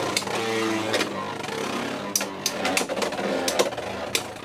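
Beyblade X tops, Driger Slash among them, spinning in a plastic stadium: a steady whir, then a run of sharp clacks as the tops collide, from about two seconds in.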